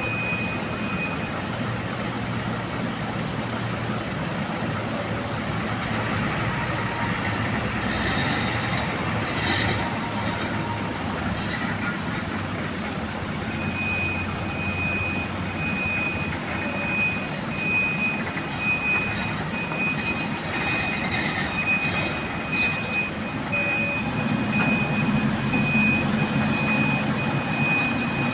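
Heavy diesel machinery running steadily with a high-pitched reversing alarm beeping over and over. The alarm stops after about a second and starts again about halfway through. A few clattering knocks come around a third of the way in and again later.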